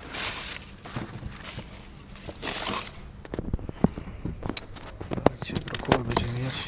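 Hands rummaging through a cardboard box of discarded vegetables: plastic bags and paper wrapping rustling, then a run of sharp clicks and knocks as the cardboard and produce are handled from the middle on.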